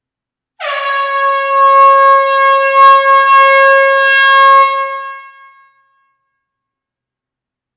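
Air horn giving one long blast at a steady pitch. It starts suddenly about half a second in, runs about four seconds, and fades out over its last second.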